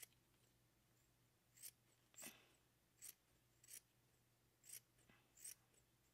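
Small scissors snipping through thin fabric: about six short, faint snips spaced half a second to a second apart as a small circle is cut out.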